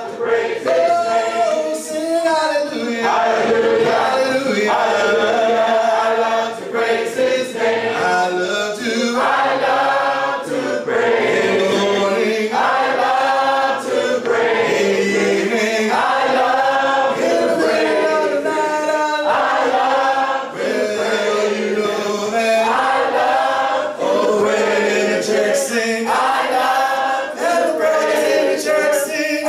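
Church congregation singing a hymn a cappella, many voices in harmony with no instruments, in phrases of a couple of seconds each.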